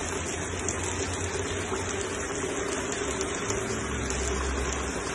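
Fast-flowing floodwater rushing past walls and debris: a steady, unbroken rushing noise.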